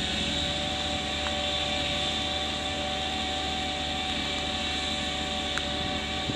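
Kubota B3200 compact tractor's three-cylinder diesel engine running under load, driving its snowblower as it throws slush: a steady drone with a constant whine.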